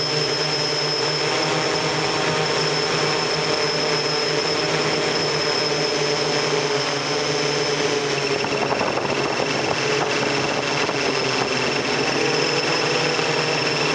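Steady whine of a multirotor octocopter's eight electric motors and propellers, heard from the camera riding on board, with a rush of air under it. A second, higher tone comes in a little past the middle and holds.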